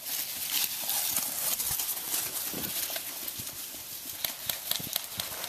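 Running footsteps with an irregular patter of thuds and scuffs, and rustling close to the microphone.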